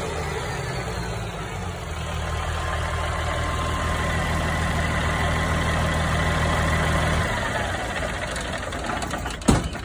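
Caterpillar 3406B inline-six diesel running steadily with a high whine, on a test run just after its fuel screws were adjusted. About seven seconds in it eases off and the whine falls away. There is a single sharp knock near the end.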